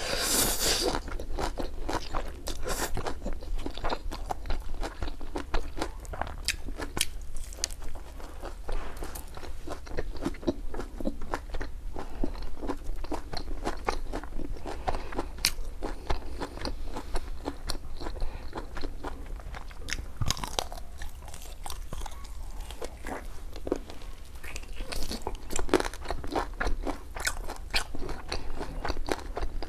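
Close-miked eating: a loud slurp of spicy ramen noodles in the first second, then steady chewing with many sharp crunches from biting into crispy fried pork.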